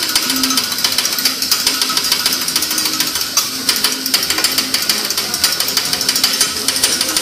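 Metal spatulas clacking and scraping rapidly and continuously on a teppanyaki griddle as the chef chops food on the hot plate.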